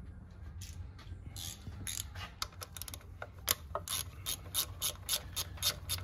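Hand ratchet clicking as it backs out a mounting bolt of a transmission neutral safety switch. The clicks start sparse and settle into an even run of about four a second.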